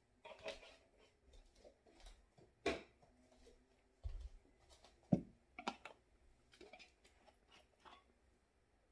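Scattered light knocks and clicks of plastic oil bottles and caps being handled and set down on a table, with a dull thump about four seconds in and a sharper knock just after five seconds.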